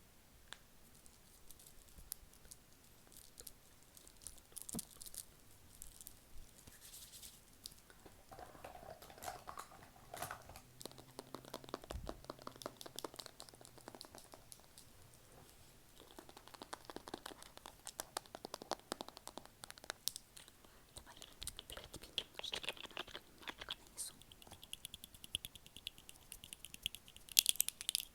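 Close-miked ASMR mouth sounds: rapid wet clicks and smacks mixed with scratchy, crinkly rustling, with a louder crackly flurry near the end.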